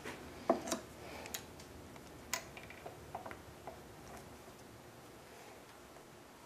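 Faint, scattered small metal clicks and ticks of needle-nose pliers and a cotter pin being worked into the kick-start shaft of a Maytag 92 engine. The clicks are irregular and stop about four seconds in.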